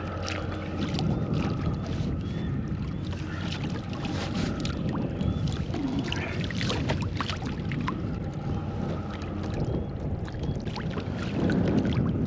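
Water sloshing and splashing around a fishing kayak, with scattered small clicks and ticks over a faint steady low hum.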